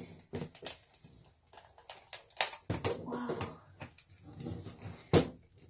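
Plastic housing of an RCA AM/FM clock radio being pulled apart by hand: scattered clicks and knocks as the case halves separate, with a sharp snap about five seconds in.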